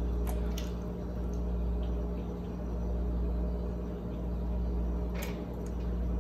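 Steady low room hum, with a few faint clicks of eating from a fork and mouth. The sharpest click comes about five seconds in, as a forkful is taken.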